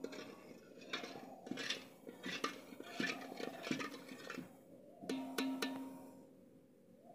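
A steel ladle stirring milk, sugar and roasted vermicelli in a brass pot, clinking and scraping against the metal many times; about five seconds in, a few sharper clinks leave a short ringing tone.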